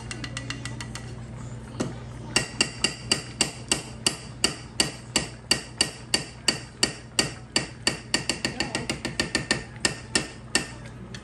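A spoon clinking rhythmically against the inside of a container while stirring a cornstarch-and-water slurry, about four ringing clinks a second. It starts softly and gets much louder about two seconds in.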